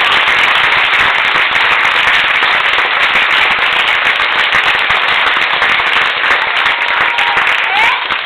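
Loud, dense applause from a theatre audience and the cast on stage, many hands clapping at once.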